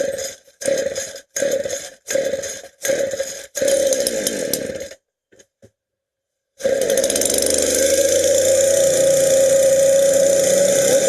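Jonsered 2040 Turbo two-stroke chainsaw being started cold: about six short bursts of engine noise with gaps between, as it is pulled over and fails to keep running, then a little over halfway through it catches and runs steadily.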